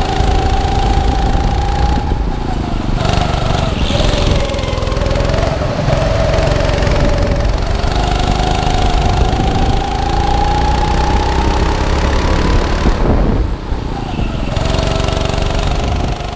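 Indoor go-kart engine heard from the driver's seat, rising in pitch along the straights and dropping off several times as the driver lifts for corners.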